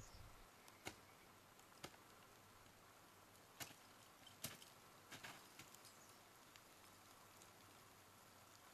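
Near silence broken by a few faint, sharp taps spread over the first six seconds: ice axes and crampons striking frozen waterfall ice.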